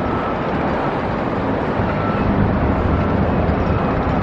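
Steady low engine rumble of a motor vehicle running nearby, growing slightly louder near the end.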